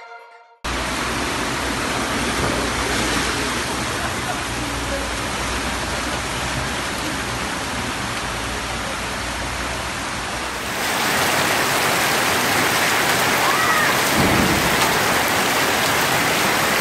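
Heavy rain pouring down with floodwater running along a street: a steady rush that starts suddenly and grows louder and brighter about eleven seconds in.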